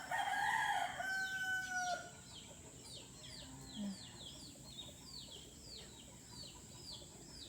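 A rooster crowing once, a call held for about two seconds at the start, followed by short, high, falling bird cheeps repeated a few times a second.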